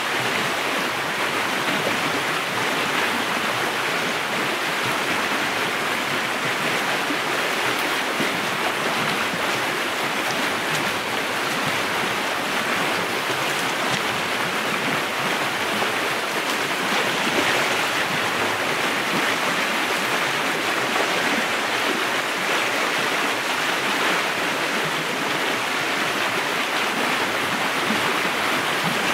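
River water rushing, a steady, even flow with no breaks.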